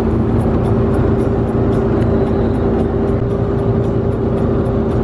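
Vehicle engine and road noise from inside a moving van's cabin: a steady low rumble with a constant drone.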